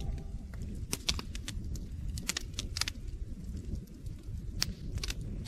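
Wood campfire crackling: irregular sharp pops and snaps over a low rumble of burning logs.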